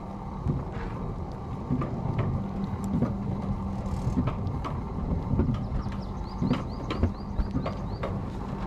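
Alpine coaster sled running along its track, a steady low hum from the ride with irregular clicks and knocks. A quick run of high chirps comes about six seconds in.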